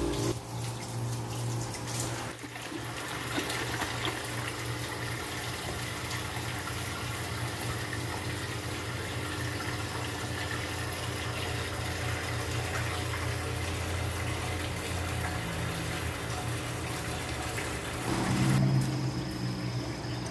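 Water from a hose pouring into a 55-gallon glass aquarium, splashing steadily onto the bottom as the tank fills, with a steady low hum underneath.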